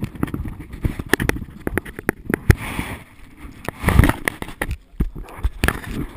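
Handling noise from a body-worn action camera as its wearer walks on a dirt path: irregular knocks and scrapes against the camera, over gusts of wind on the microphone. The loudest buffet comes about four seconds in.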